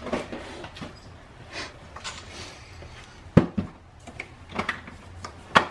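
Scattered plastic clicks and knocks from an infant car seat and its base being handled in a car's back seat, with a sharp knock about three and a half seconds in and another near the end.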